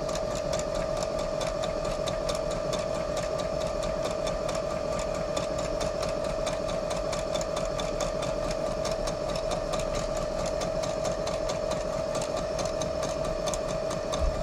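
Electric sewing machine running steadily at speed, stitching fabric: fast, even needle strokes over a constant motor hum.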